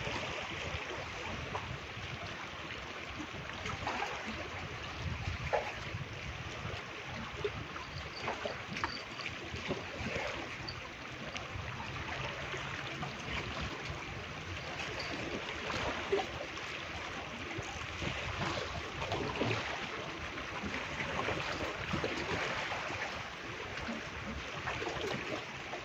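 Small sea waves washing and splashing against the rocks of a breakwater, a steady wash of water.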